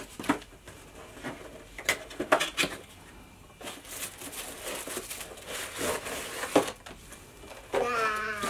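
Cardboard box flaps and packing paper rustling and crinkling as a toy box is opened by hand, with scattered sharp clicks and taps of the cardboard. Near the end a child's voice lets out a brief drawn-out exclamation.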